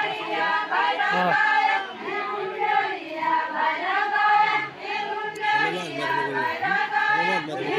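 A group of villagers singing a deuda folk song together in the circle dance. Several voices sing at once, a low voice under higher ones.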